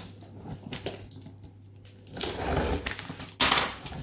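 Cardboard shipping box being handled and opened: faint scraping and rustling of cardboard, then a short loud rip about three and a half seconds in as the taped flap is pulled open, and a knock at the very end.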